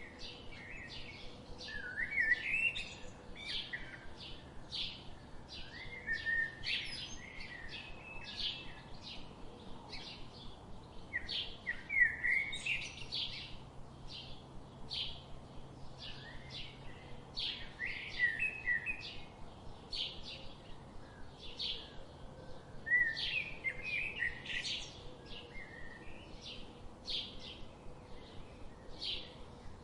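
Songbirds chirping: a steady stream of short high chirps, about two a second, broken every five or six seconds by a louder warbling phrase.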